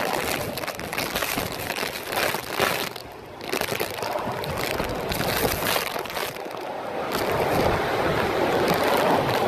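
Hurricane-force wind gusting with heavy driving rain, a dense rushing noise on a phone's microphone. It eases briefly about three seconds in, then the gusts grow louder toward the end.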